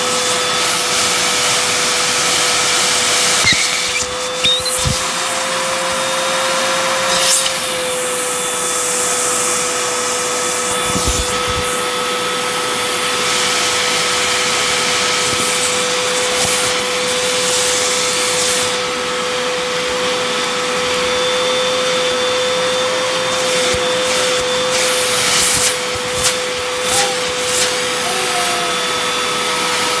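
Upright vacuum cleaner running steadily through its hose and crevice tool, with a constant motor whine over the suction noise. A few brief rattles and knocks come as debris is sucked off the rug, a couple early on and several near the end.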